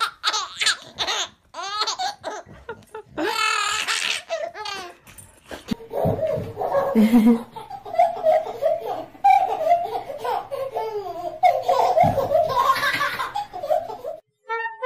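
A baby laughing hard in repeated high squeals and belly laughs. After a short break about five seconds in, lower-pitched laughter and voices follow, and the sound cuts off suddenly near the end.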